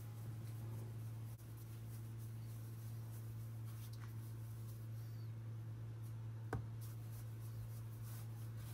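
Faint rubbing of hands rolling bun dough into a long log on a work surface, over a steady low hum, with one soft knock about six and a half seconds in.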